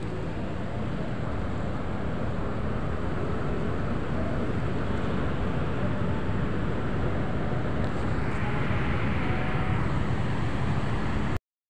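Steady rushing, rumbling background noise with no distinct knocks or clicks, swelling slightly after about eight seconds and cutting off abruptly just before the end.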